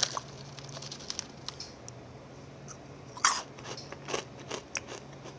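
Someone chewing spicy squid-peanut snack balls, crunchy puffed shells with a peanut inside: a handful of scattered crunches, the loudest about three seconds in, over a faint steady low hum.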